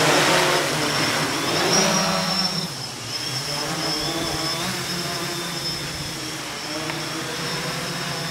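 DJI F550 hexacopter's six E305 brushless motors and propellers buzzing in flight: a steady whine of several tones that waver up and down in pitch as the motor speeds change, a little louder in the first couple of seconds.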